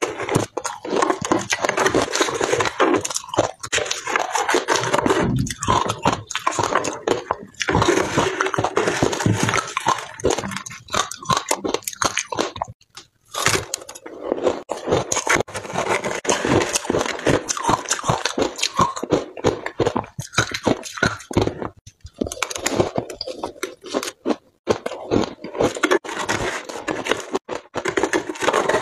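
Close-up crunching and chewing of mouthfuls of shaved ice, dense and irregular, with a spoon scraping frosty ice in a plastic tray; the crunching breaks off briefly a few times.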